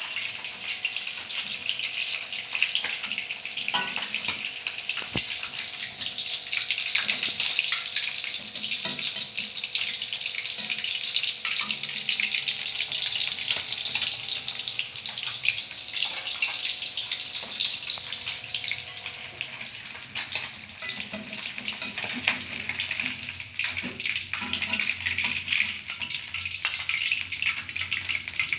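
Chicken pieces deep-frying in hot oil in a wok, sizzling and crackling steadily. A metal spatula stirring in the wok knocks against it now and then.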